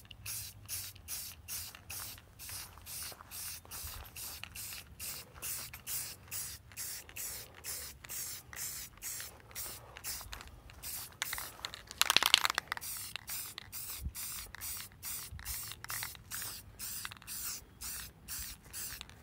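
Aerosol spray-paint can hissing in short quick bursts, about three a second, with one longer, louder spray about twelve seconds in.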